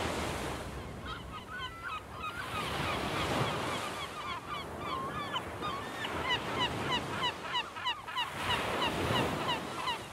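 Seaside ambience: surf washing in and swelling a few times, under a dense chorus of short bird calls, several each second.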